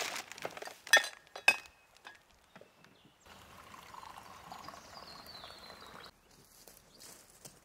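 A few sharp clinks and knocks in the first second and a half as an enamel mug and vacuum jug are set down on a wooden table. About three seconds in, liquid pours steadily from the jug into the enamel mug for about three seconds.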